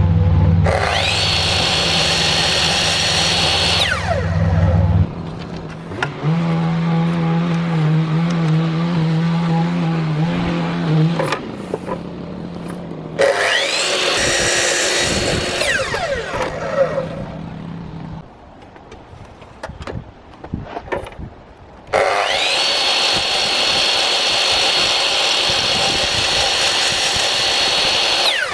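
A high-speed electric woodworking power tool spinning up to a steady high whine, running for a few seconds and winding down, three times; the last run is the longest, about six seconds. A lower-pitched motor hum runs between the first two.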